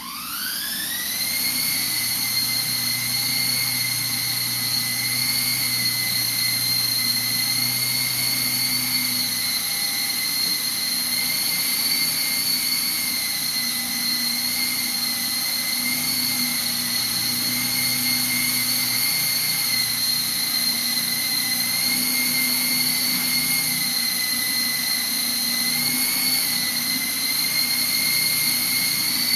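Small indoor RC helicopter's motor and rotor whining. The whine rises steeply in pitch as it spools up at the start, then holds steady with small wavers in pitch as it hovers and manoeuvres.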